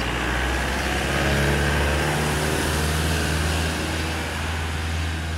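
A motor vehicle's engine running, a steady low drone that rises and falls slightly in pitch, over street noise.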